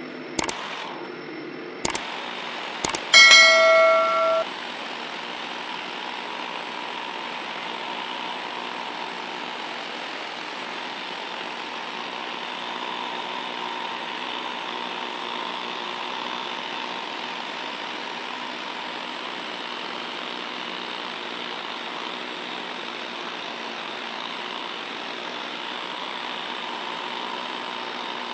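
Pneumatic needle scaler (von Arx NP 34) running steadily, its needles hammering rust off steel. Near the start, three clicks and a loud bell-like chime from an added subscribe-button sound effect.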